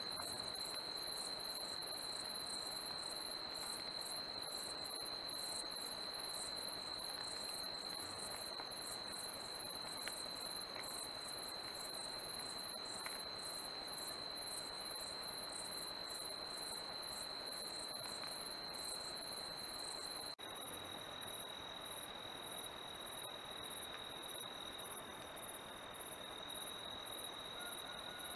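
Crickets and other night insects calling: a steady high trill with a quick, even, pulsing chirp over it. The chorus shifts slightly about two-thirds of the way through.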